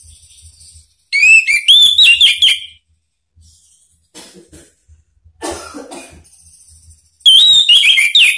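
Orange-headed thrush singing: two loud bursts of rapid, clear whistled phrases full of sliding notes, one about a second in and another near the end. Between them comes a quieter rough, hoarse sound.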